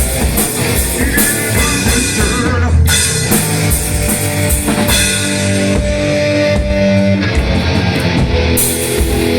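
A stoner rock band playing live, with electric guitar and drum kit.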